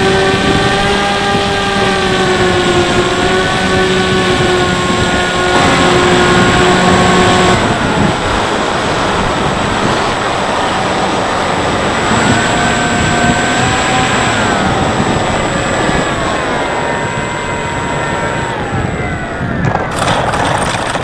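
Electric brushless motor and pusher propeller of a Bixler 3 RC plane whining over rushing airflow noise on the onboard microphone, the pitch changing with the throttle. The whine breaks off partway through, comes back, then falls twice as the throttle is pulled back and the motor spins down. A short crunch near the end comes as the plane settles on the grass.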